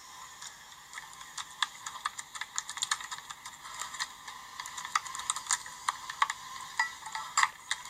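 Slime being worked by hand, giving rapid, irregular small clicks and pops.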